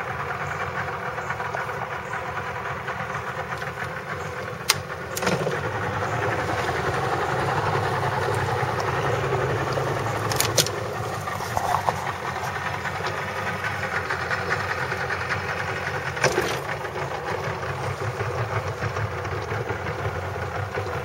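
A small boat's motor running steadily, getting a little louder about five seconds in, with a few sharp knocks along the way.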